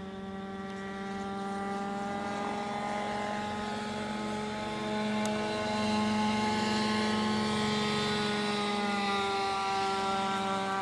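A motor drones steadily at one pitch with many overtones. The pitch drifts slowly, and the drone grows louder about halfway through.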